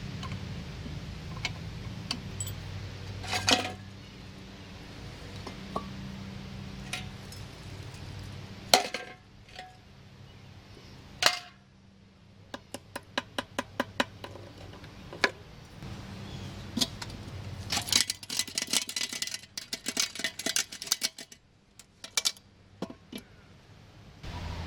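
Metal parts of an old vacuum floor cleaner clinking and knocking as it is taken apart by hand. There are two runs of quick, evenly spaced clicks, one in the middle and one near the end, over a steady low hum.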